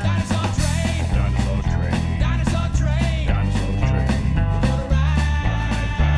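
Upbeat children's TV theme-song music with a stepping bass line and regular drum hits.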